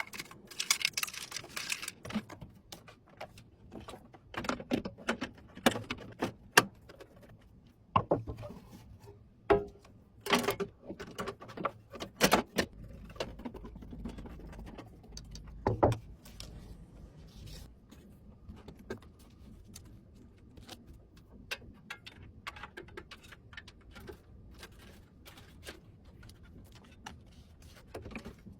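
Irregular clicks, taps and light clatter of small metal and plastic computer parts being handled and fitted during a desktop PC build.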